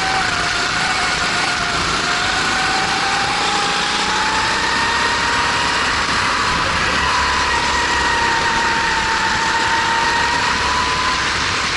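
Single-cylinder Honda GX270 four-stroke racing-kart engine running hard. Its pitch dips briefly at the start, then rises steadily for several seconds as the kart accelerates, and levels off with small dips, over a steady rushing hiss.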